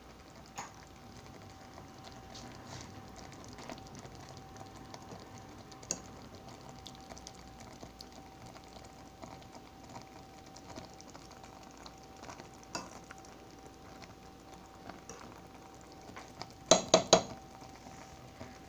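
Chicken simmering in cream of chicken soup in a skillet: a faint bubbling sizzle with a steady hum and scattered light clicks. Near the end there are three sharp knocks in quick succession.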